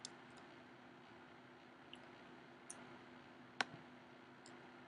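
Near silence over a faint steady hum, broken by a handful of faint clicks at a computer, the sharpest about three and a half seconds in.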